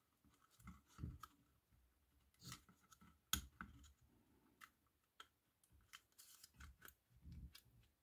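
Faint plastic clicks and scrapes of stubborn snap latches being worked on the plastic electronics box cover of a Chinese diesel heater, with a sharper click about three and a half seconds in.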